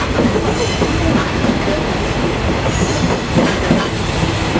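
Passenger coaches of a KTM intercity train rolling past close by, their wheels clattering rhythmically over the rail joints over a steady loud rumble.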